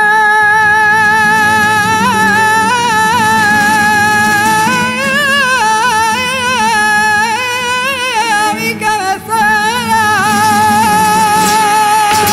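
A male copla singer in flamenco style holds the long final note of a song, with vibrato and wavering ornaments in the middle, briefly dipping about nine seconds in before holding it again to the close. A flamenco guitar strums underneath.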